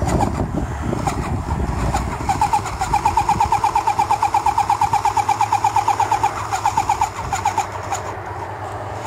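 Electric airless paint sprayer's pump running, first with a low rumble, then a fast even pulsing at about eight pulses a second for some five seconds over a steady low hum.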